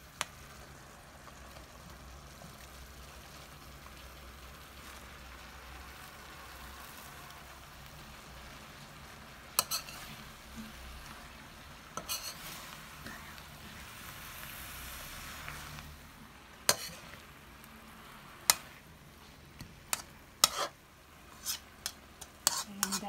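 Oyster sauce with garlic and onion sizzling steadily in a wok as it simmers down to thicken. From about ten seconds in, kangkong (water spinach) leaves go in and are tossed, with sharp clicks and scrapes of the utensils against the wok.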